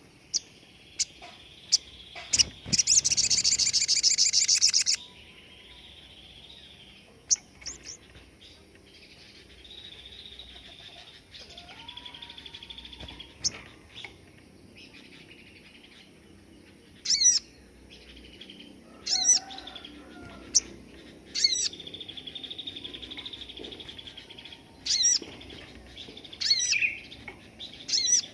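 Sogon songbird singing in sharp chirps, with one loud, very fast high trill lasting about two seconds near the start. This is the 'tembakan' burst that songbird keepers prize for tutoring. Several short, sharp calls follow later.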